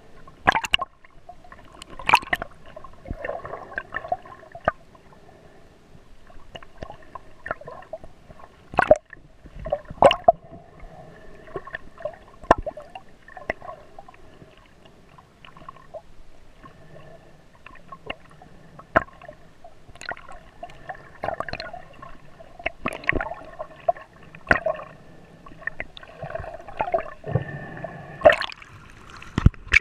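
Water gurgling and sloshing against a GoPro's waterproof housing, with sharp clicks and knocks at irregular intervals.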